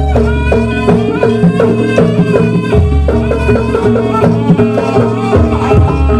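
Live jaranan band music: drums beating a steady rhythm under a wavering, ornamented melody line.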